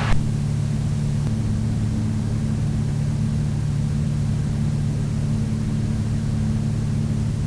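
Steady cockpit drone of a Piper PA-31 Navajo's twin piston engines and propellers in flight, a low hum under a constant hiss of airflow.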